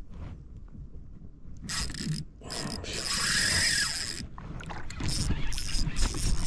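Fishing reel working against a hooked fish being fought up from about 25 m down, a mechanical ratcheting whir in several bursts, the longest lasting about a second and a half.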